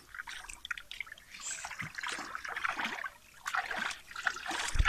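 Shallow water splashing and trickling in irregular spurts as fish are handled at the water's edge, with a short low thump near the end.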